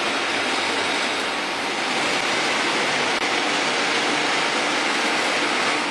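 Steady, even noise of oil distillation plant machinery running, with no distinct tones or knocks.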